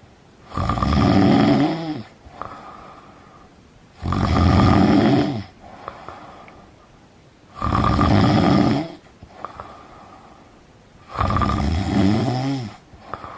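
Person snoring loudly: four long snores, each about one and a half seconds, about three and a half seconds apart, with faint breathing between them.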